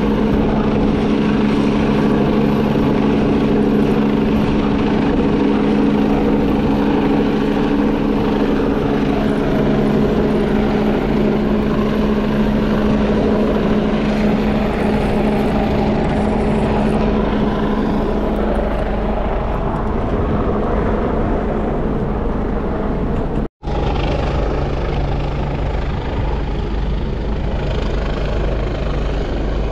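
A helicopter flying near a large ship, giving a steady, droning hum with several steady tones that fade somewhat later on; the sound drops out for an instant near the end.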